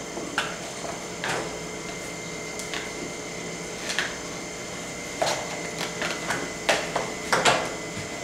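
Hands handling trading-card packaging on a table: scattered short clicks, taps and rustles, coming faster in the last few seconds.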